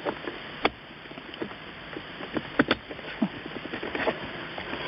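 Hard plastic clicks and knocks as a Mercedes Bluetooth phone module is pushed and snapped into its contact-plate cradle in the centre armrest, with several sharp clicks, two of them close together about two and a half seconds in.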